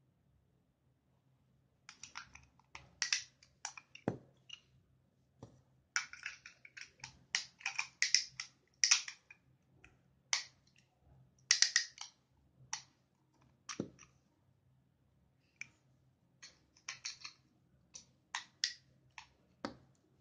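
A small plastic spinning top being handled and wound up for a spin: a string of irregular light plastic clicks and taps, with a couple of duller knocks.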